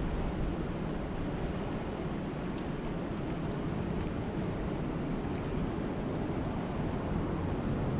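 Steady rain in a mountain storm, a dense even hiss with a few faint single ticks of drops, about two and a half and four seconds in.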